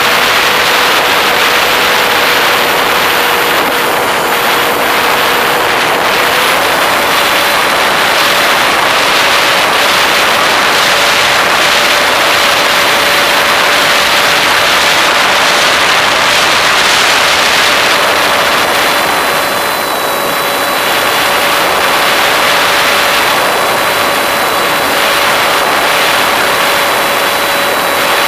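Model airplane's motor and propeller heard from the onboard camera, a steady hum under loud rushing air noise. The hum steps up slightly in pitch about six seconds in, and the rush eases briefly about twenty seconds in.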